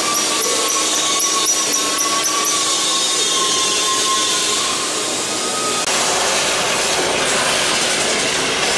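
Handheld power tool working a metal part held in a vice: a steady whine whose pitch sags slightly, over a rough grinding noise. About six seconds in, the whine stops and a harsher hissing noise takes over.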